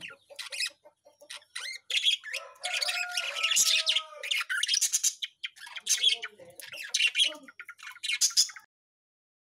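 Aviary budgerigars chattering in quick chirps and squawks, with a longer run of warbling chatter in the middle. The calls cut off suddenly near the end.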